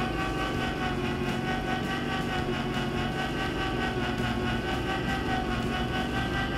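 Electric can opener's motor running steadily as it turns a can and cuts around the lid: an even whine over a low hum.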